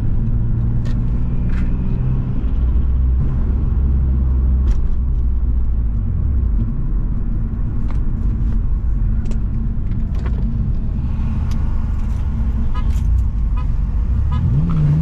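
Turbocharged Subaru EZ30 flat-six cruising at a steady engine speed, heard from inside the car. In the last second the engine note begins to rise as it starts to accelerate.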